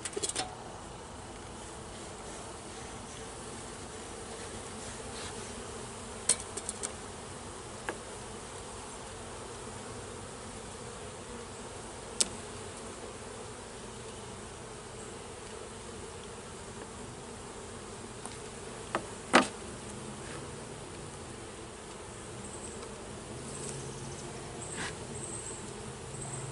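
Honeybees humming steadily around an open hive as frames are worked, with a few sharp clicks and knocks of wooden frames being handled. The loudest knock comes a little past the midpoint.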